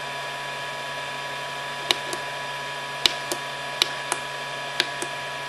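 Control-panel buttons on a FlashForge Creator 3D printer clicking about four times, each press followed by a fainter release click, as a calibration value is stepped through the menu. A steady hum from the switched-on printer runs underneath.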